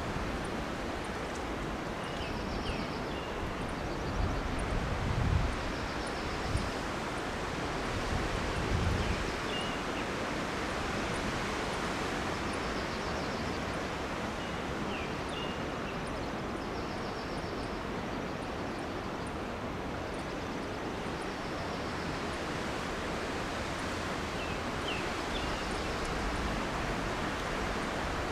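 Wind rushing steadily through tall Monterey pines, swelling in gusts about four and eight seconds in, with a few short high squeaks as crossed branches rub against each other in the sway.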